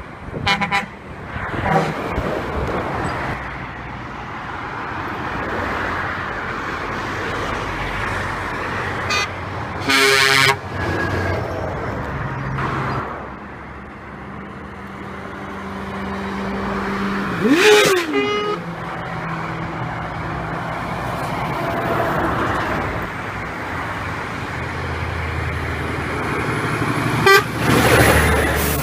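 Heavy trucks passing on a road, with their engines running, and three loud truck horn blasts about a third of the way in, in the middle, and near the end, each lasting about a second.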